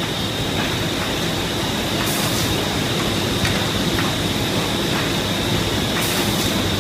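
Ding Shung FM-1050 film laminating machine running in production: a steady mechanical rumble with a constant high whine and faint ticks about once a second as laminated sheets are separated and fed to the stacker.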